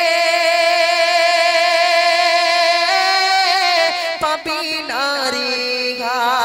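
A man singing a Bengali Islamic gojol, holding one long steady note for about three seconds. He then steps up in pitch and moves into a wavering, ornamented run.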